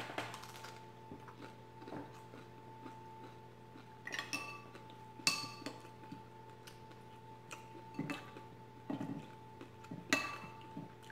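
A spoon clinks sharply against a ceramic soup bowl three times, about four, five and ten seconds in, each strike ringing briefly. Softer knocks and eating noises come between the clinks, over a faint steady high hum.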